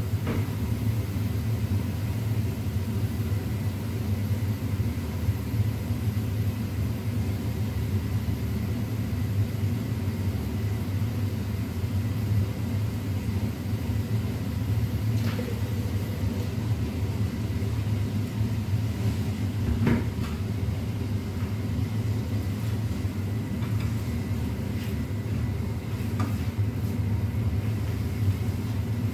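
Steady low rumble of a kitchen range-hood extractor fan running over the cooktop, with a few faint clicks and knocks of cookware scattered through it.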